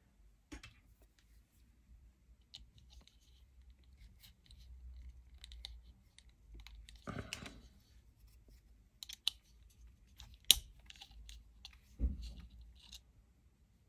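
Light scattered clicks, taps and rattles of small metal hand tools such as Allen keys being picked up, sorted through and put down on a bench, with one sharper click about three-quarters of the way through.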